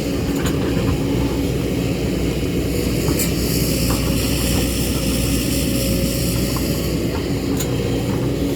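Excavator's diesel engine running steadily at working speed, with a few light sharp knocks over it.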